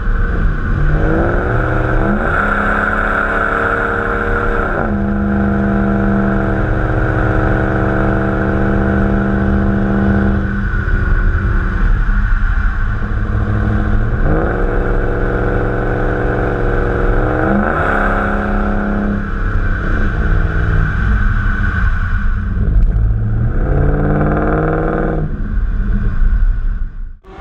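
Dodge Ram's 5.7-litre Hemi V8 running through its stock exhaust. The engine note climbs and holds steady several times, dropping back in between, then cuts off abruptly near the end.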